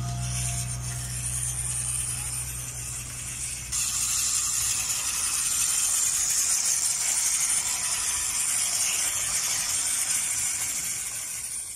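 WPL C24 RC mini pickup truck driving over dry leaf litter: a steady whir from its electric motor and gears, with the tyres rolling through the leaves. The sound jumps louder about four seconds in and fades near the end.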